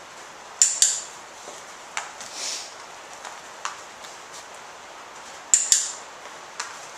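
A dog-training clicker clicked twice, each time a sharp double click (press and release), the first about half a second in and the second near the end, marking the sitting puppy's focus. Fainter ticks and a brief rustle come in between.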